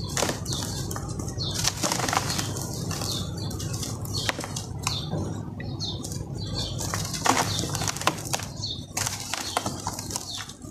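Dry sand-cement chunks crushed and crumbled by hand: irregular gritty crunches over a steady hiss of loose sand and dust pouring into a plastic tub.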